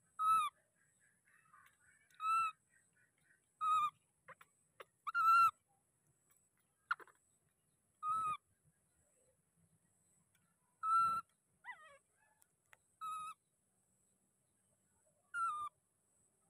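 Baby macaque giving short, clear coo calls over and over, about eight of them a second or two apart, each a single slightly arching tone.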